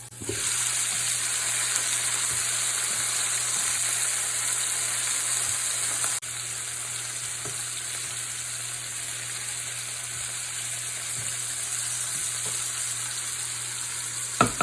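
Chicken pieces sizzling in hot oil in a pot over a medium flame, the water they release cooking off. A steady sizzle that drops abruptly to a somewhat lower level about six seconds in, then carries on evenly.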